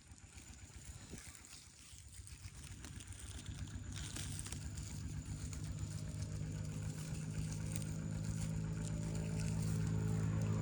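An engine running with a steady low hum that grows gradually louder from about three seconds in.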